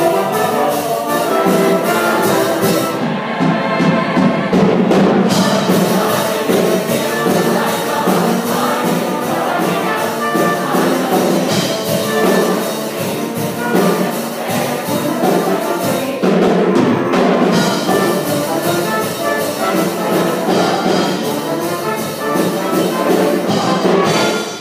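Show choir singing over a live backing band with brass prominent, a full, loud up-tempo number that stops right at the end.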